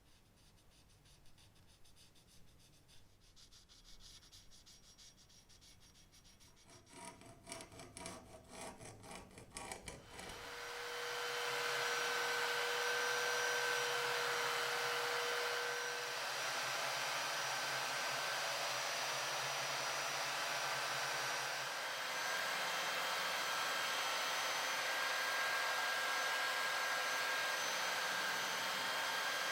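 Quick rhythmic rubbing or filing strokes on the workpiece, then about ten seconds in a power tool starts and runs steadily with a hissing noise and a steady whine.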